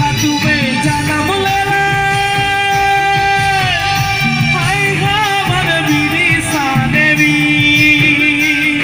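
Live singing with band accompaniment: a voice holds long, wavering notes and slides between them.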